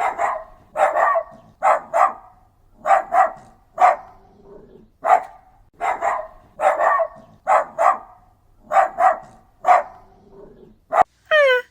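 A dog barking over and over, with many short barks, often in quick pairs. Near the end it breaks into a high whine that falls in pitch.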